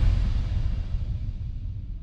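Low rumbling tail of a deep cinematic boom, fading away steadily, part of a dark horror film score.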